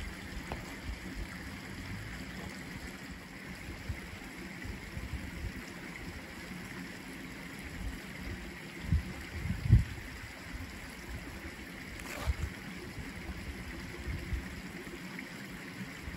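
Wind buffeting the microphone, a low, uneven rumble that swells in gusts, loudest about nine to ten seconds in.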